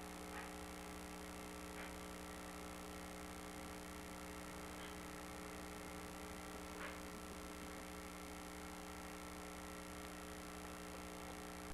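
Faint steady electrical hum and hiss with a few faint clicks; no pulling or engine sound.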